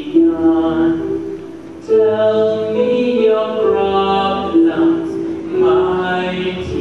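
A live stage-musical number: several voices singing together over the accompaniment, holding long notes.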